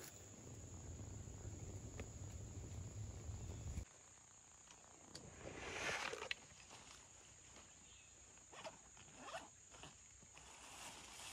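Soft rustling of clothing, gear and leaf litter as a person handles a vest pouch and moves in woodland undergrowth, with the loudest swish about halfway through. A low rumble of wind on the microphone in the first few seconds stops abruptly. A faint, steady high-pitched insect drone continues throughout.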